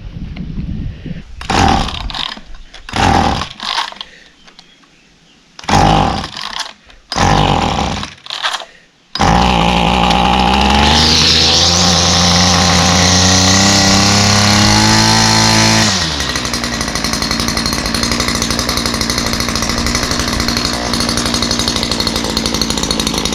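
Petrol brush cutter being pull-started: several short bursts from pulls on the cord, then the engine catches about nine seconds in and runs at high revs. Around two-thirds of the way through it settles to a lower, steady speed.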